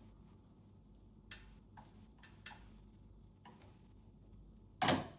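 Light clicks and taps of plastic parts being handled while an air conditioner's indoor unit is taken apart, four or five scattered over a few seconds, then one louder short clack near the end.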